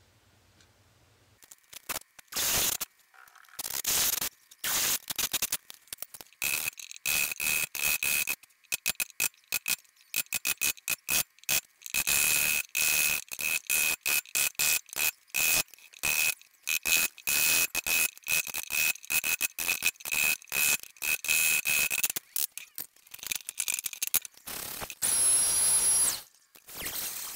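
Wood chisel chopping and paring out a rectangular pocket in pine: a long, irregular run of sharp clicks and knocks as the blade is driven into the wood and levers out chips.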